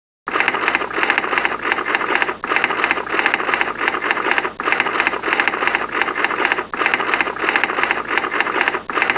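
Fast, regular mechanical clatter of many sharp ticks, starting suddenly just after the beginning and broken by short pauses about every two seconds.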